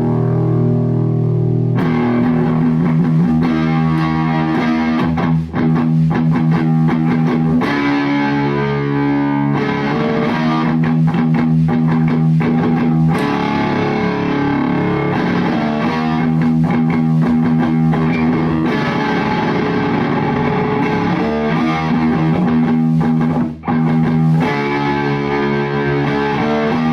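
Electric guitar played through an Orange Baby Terror solid-state amp head into a Celestion Neo 12-inch speaker. It alternates between strummed chords and held chords and notes.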